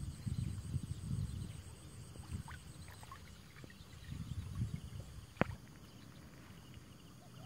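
Shallow water sloshing and splashing in uneven bursts as someone wades and works in a flooded field, with one sharp click about five and a half seconds in.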